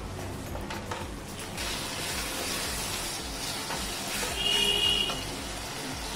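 Karandi shrimp masala sizzling as it fries down in a non-stick pan while it is stirred with a wooden spatula, cooking off its water until the oil separates. The sizzle grows louder about a second and a half in, and a brief high squeak stands out a little past halfway.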